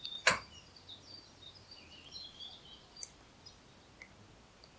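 Faint outdoor ambience with scattered bird chirps, broken by a sharp click about a third of a second in and a couple of fainter ticks later.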